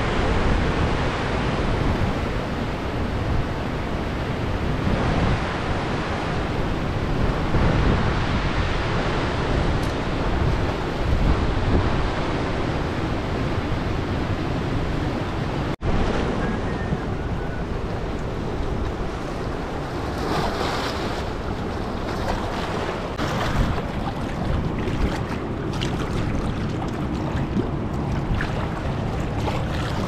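Fast, muddy river rushing over rocks through rapids: a steady wash of water noise, with a brief break about halfway through.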